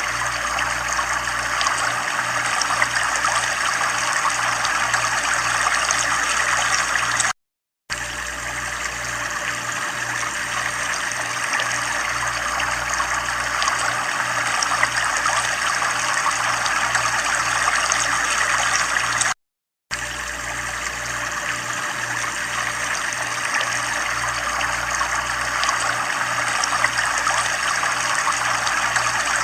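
Steady running water, an even trickling and splashing flow, with a faint pulsing low hum underneath. The sound cuts out to silence for about half a second twice, about eight and twenty seconds in.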